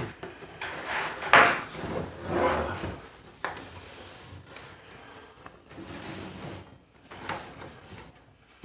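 Screwdriver prying at a keyboard's plastic case: scraping and straining of plastic with several sharp clicks, the loudest about a second and a half in.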